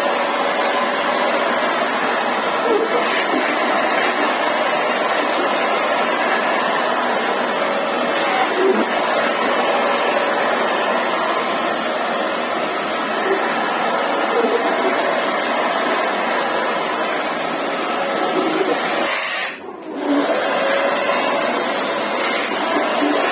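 Vacuum cleaner motor running with a steady whirring hiss, dipping briefly near the end.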